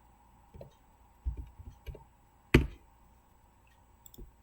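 Scattered clicks and taps from a computer mouse and keyboard, about half a dozen, with one sharp, louder click about two and a half seconds in. A faint steady hum lies underneath.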